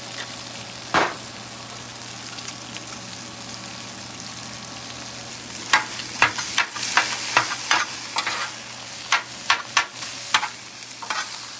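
Hash browns and breakfast sausage sizzling on a hot Blackstone flat-top griddle, with a single knock about a second in. From about six seconds in, a metal spatula repeatedly chops and scrapes against the steel griddle top, breaking up the sausage.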